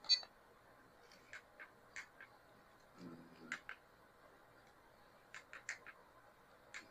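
Scattered light clicks from handling the RC crawler and its transmitter, the sharpest one right at the start, with a brief low buzz about three seconds in.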